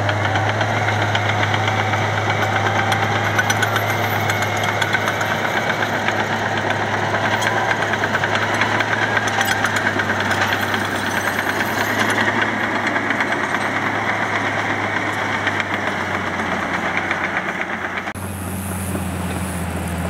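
Bulldozer's diesel engine running steadily and fairly loud. About eighteen seconds in, the sound drops and changes to a quieter, smoother engine hum.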